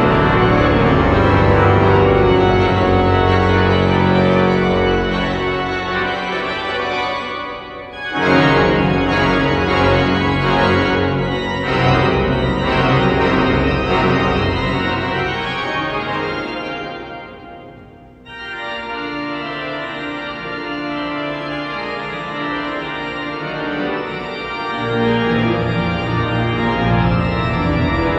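Pipe organ playing full, sustained chords in a reverberant cathedral. The sound dies away into the echo about 8 seconds in and cuts back in loud, then fades further near the middle before softer playing resumes and builds again.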